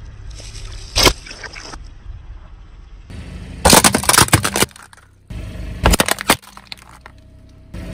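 A car's tyres crushing crunchy objects: a sharp crack about a second in, then two bursts of crackling and breaking, over the low steady hum of the car.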